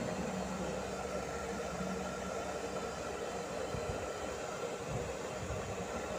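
Steady whirring hum of a small electric motor blowing air, with a faint high whine, and a few soft low thumps.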